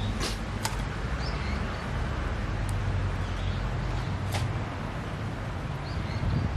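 Wood fire crackling: a few sharp pops over a steady low rush.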